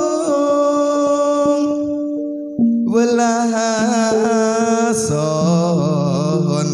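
Campursari music played live on a Korg Pa700 arranger keyboard through a PA system, with a held, wavering melody over sustained notes. The melody thins out briefly about two seconds in, then a fuller passage with low held bass notes comes back in.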